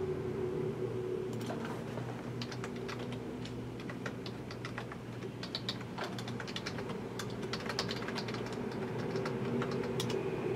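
Typing on a computer keyboard: quick, irregular key clicks in runs, over a steady low hum.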